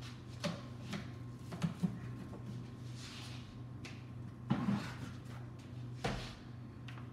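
Household items being handled around a kitchen trash can: a few light knocks and clicks and two short rustles, about three and four and a half seconds in, over a steady low hum.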